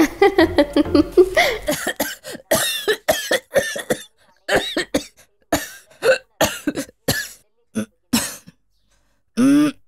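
A man coughing repeatedly, a run of short separate coughs lasting several seconds that thin out toward the end.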